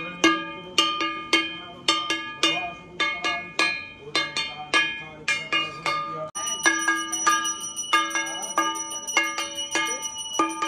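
A kashor, the bell-metal gong plate of Bengali puja, struck with a stick in a steady beat of about three strokes a second, each stroke ringing. About six seconds in, a high-pitched bell starts ringing continuously alongside it.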